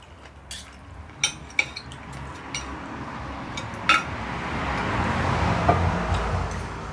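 Knife and fork clinking and scraping on a plate while cutting food, with several sharp clinks in the first four seconds. In the second half a rushing noise with a low rumble swells and fades, loudest about five to six seconds in.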